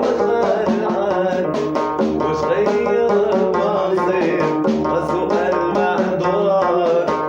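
Arabic song music: plucked string instruments and hand drums keeping a steady beat under a wavering melodic line.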